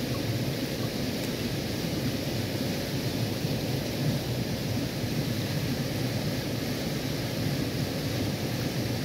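Steady rush of a shallow stream flowing over a stony bed.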